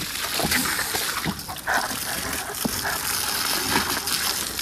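Water spraying and splashing onto a horse's coat as she is washed: a steady hiss of water with irregular splatters.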